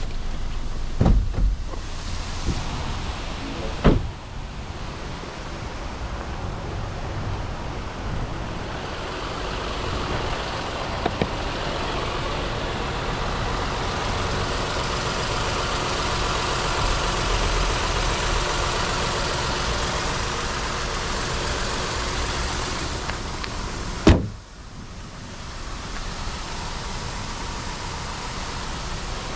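2015 MINI One 1.2 three-cylinder turbo petrol engine idling steadily with the bonnet open, with a few knocks in the first seconds. About 24 seconds in, a single loud slam of the bonnet closing, after which the engine is heard muffled.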